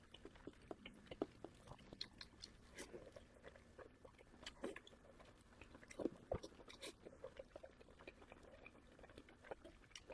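Close-miked chewing of pork belly: many soft, irregular mouth clicks and chewing sounds, with a louder knock about six seconds in.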